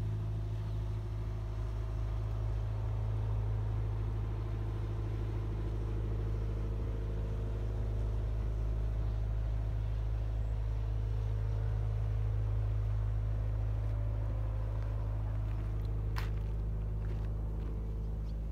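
Steady low engine drone that holds an unchanging pitch, with a single sharp click near the end.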